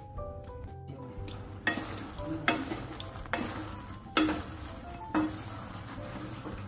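Makhana (puffed lotus seeds) being stirred and turned in a pan with a spatula: rustling, scraping strokes roughly once a second, beginning about one and a half seconds in.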